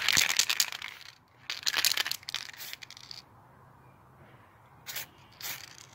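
Aerosol spray paint can fitted with a higher-flow nozzle, hissing in two bursts of about a second and a half each, then two short puffs near the end.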